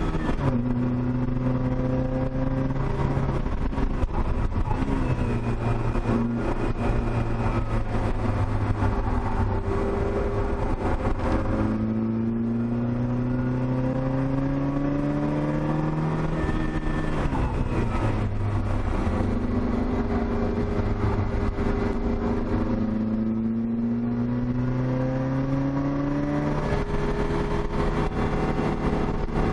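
Opel Speedster 2.2's four-cylinder engine heard from inside the cabin on a circuit lap, its pitch rising under acceleration and dropping back at each gear change or lift several times. Wind and tyre noise run underneath.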